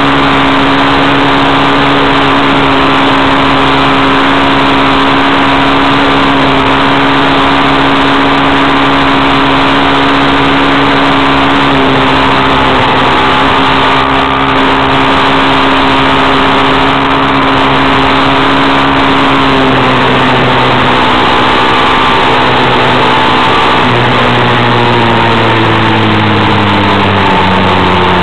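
Vehicle engine running at cruising speed on a gravel road, under heavy road and wind noise. The engine note drops a step about 12 seconds in and again about 20 seconds in, then falls steadily near the end as the vehicle slows.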